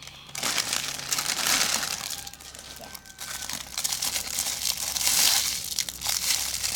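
Plastic packaging of a squishy toy crinkling as it is opened by hand, in two bouts of dense crackly rustling.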